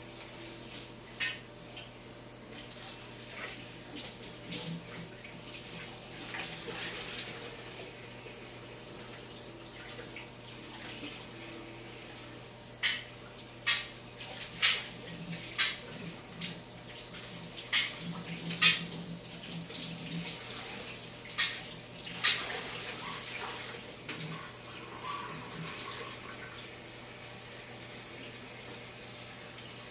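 Water running from a kitchen tap, with about ten sharp knocks and clinks through the middle of the stretch.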